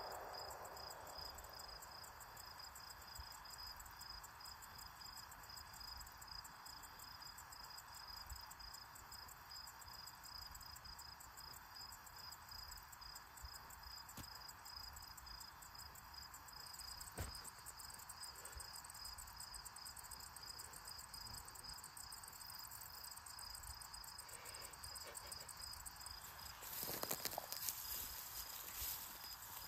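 Faint, steady cricket chirping, an even high pulsing that runs on unchanged. Near the end comes a brief scuffling noise.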